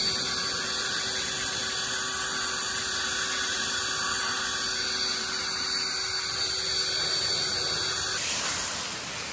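EGO battery leaf blower running steadily, a constant whine over rushing air as it blows fallen grapes off the track. About a second before the end the whine stops and a hiss of water spray from a garden hose is left.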